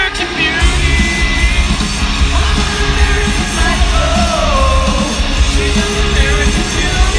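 Loud live rock concert music picked up on a phone: a band with strong bass and a singer's voice, heard from the arena floor.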